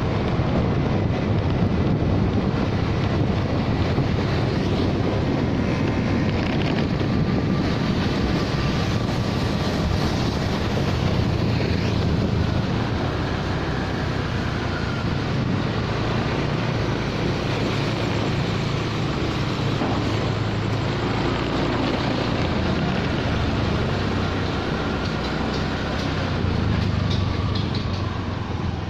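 Wind buffeting the microphone on a moving Honda Spacy motorcycle, with the bike's engine and road noise running underneath as a steady low rumble. The noise eases off slightly near the end as the bike slows.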